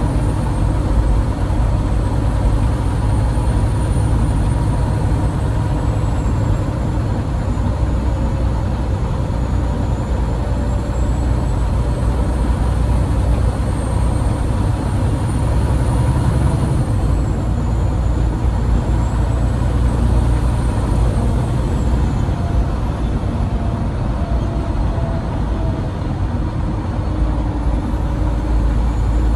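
Peterbilt 389 semi truck's diesel engine running, a steady low drone.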